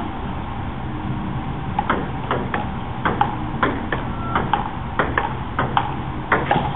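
Table tennis ball clicking off paddles and the table in a rally that starts about two seconds in, with a quick run of hits, roughly three a second. A steady low hum lies under it.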